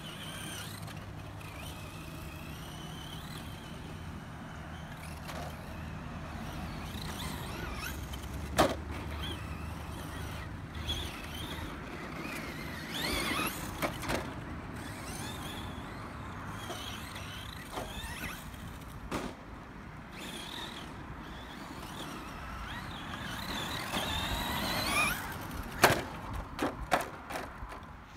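Brushless electric motor of a radio-controlled Traxxas Slash 2WD monster truck whining up and down in pitch as it speeds over dirt jumps. There are sharp knocks as it lands: a loud one about eight seconds in, and several in quick succession near the end as it tumbles.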